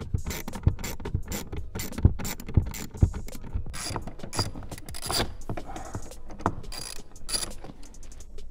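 Hand ratchet clicking in quick, irregular runs mixed with sharp metallic knocks, as it loosens trim-panel bolts and Torx screws.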